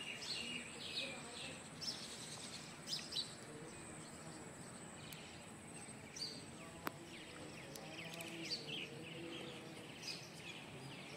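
Birds chirping outdoors, many short high calls scattered throughout, over a faint low murmur. One sharp click about seven seconds in.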